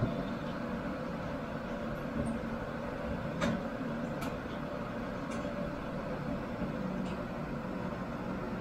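Steady low mechanical hum, with a few faint light clicks in the middle.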